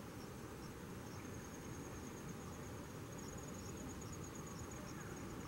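An insect chirping in a continuous, rapid, high-pitched pulsing trill over a steady background hiss; the trill grows a little stronger about three seconds in.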